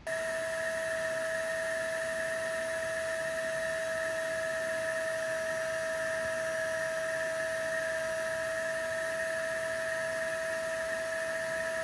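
Small electric air pump running with a steady, even whine, inflating an air mattress.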